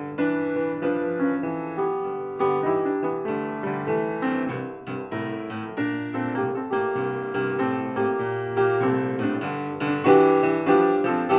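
Piano music, a steady run of struck notes and chords, a little louder near the end.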